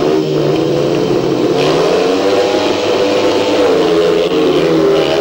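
Three speedway bikes' single-cylinder 500cc methanol engines revving hard at the start gate, then accelerating away from the start together, their pitch rising and falling.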